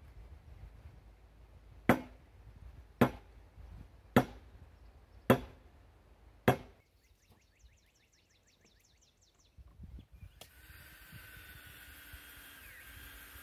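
Five sharp hammer blows on a wooden timber post, evenly spaced a little over a second apart. After a pause, a cordless drill runs steadily at the post's base bracket for the last few seconds.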